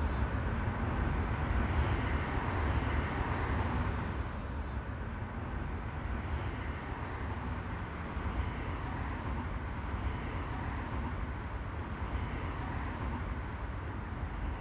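Steady low rumble of urban traffic noise, with no distinct events, easing slightly a few seconds in.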